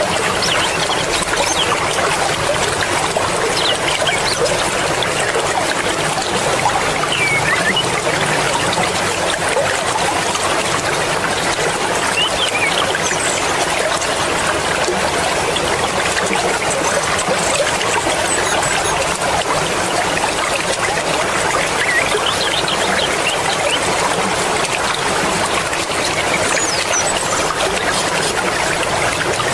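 Mountain river flowing fast: a steady rush and babble of water.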